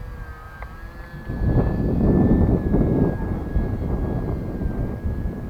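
Gusts of wind buffeting the microphone from about a second in, over the steady whine of a small electric RC plane's motor and propeller, its pitch drifting slightly.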